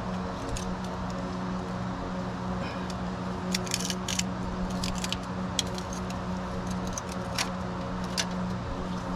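Scattered light metallic clicks and scrapes of a wrench being worked onto a stuck, hard-to-grip oil filter, a cluster of them a few seconds in, over a steady low hum.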